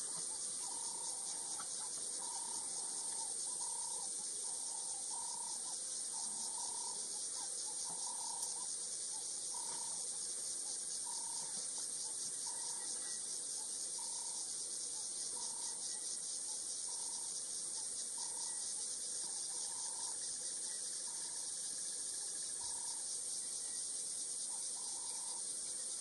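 A steady, dense high-pitched insect chorus of crickets or cicadas in dry bushveld grass. Through it a short, lower note is called over and over, about once a second, most like a bird.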